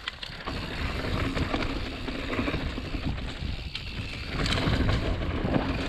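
Mountain bike riding down a dirt woodland trail: tyres rumbling over the ground, with scattered clicks and rattles from the bike and wind on the microphone. It grows louder a little over four seconds in.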